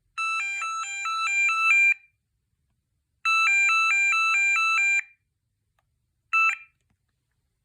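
VTech T2326 cordless phone sounding its find-handset page: an electronic warbling ring that trills quickly between a few fixed notes. It comes in two bursts of nearly two seconds each, then a short blip a little over six seconds in.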